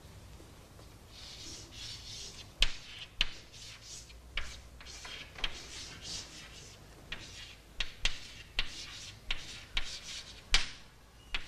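Chalk writing on a blackboard: short scratchy strokes broken by sharp taps as the chalk strikes the board.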